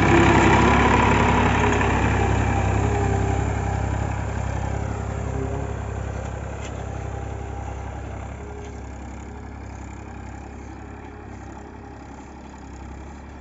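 Massey Ferguson 1035 DI tractor's three-cylinder diesel engine running as the tractor drives away, loud at first and growing steadily fainter.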